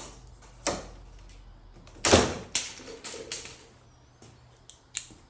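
Handling noise from a plywood shipping crate and its straps: a string of sharp knocks and rattles, the loudest about two seconds in, with smaller clicks after it.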